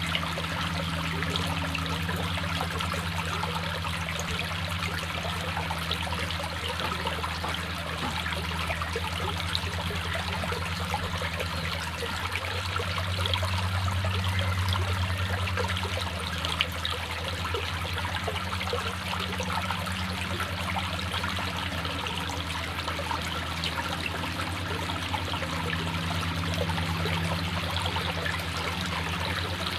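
A small brook trickling and splashing steadily over stones and a low cascade, with a steady low hum underneath.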